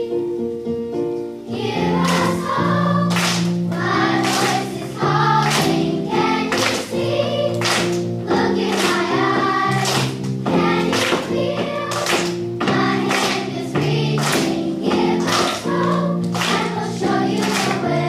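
Elementary school children's choir singing together with instrumental accompaniment. A held chord sounds first, then the voices come in about a second and a half in over a steady beat.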